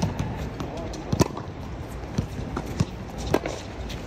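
Tennis rally on a hard court: two sharp racket-on-ball hits about two seconds apart, with lighter taps of footsteps and ball bounces between them.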